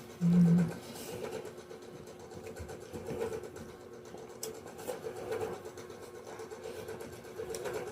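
A steady low mechanical hum, like a small motor running, with a few faint clicks over it. A short, loud, flat low hum comes just after the start and lasts about half a second.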